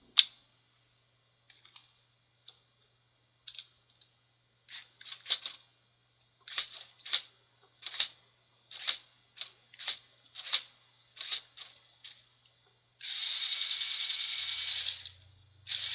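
Motorized Lego Technic 8041 model's plastic gears and parts clicking and rattling in a series of short, irregular bursts, then whirring steadily for about two seconds near the end.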